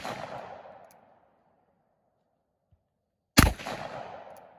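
Uberti Cattleman bird's-head single-action revolver with a 3.5-inch barrel firing .357 Magnum: the echo of one shot dies away at the start, and a second shot goes off about three and a half seconds in, its echo trailing off over about a second. A faint short click follows each shot about a second later.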